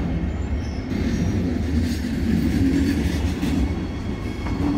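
Train crossing a steel railway bridge, heard from the walkway beside the tracks: a steady low rumble.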